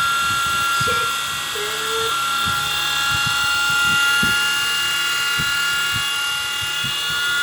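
Small electric motor of a 1/72-scale RC model helicopter running with its rotor spinning: a steady high-pitched whine.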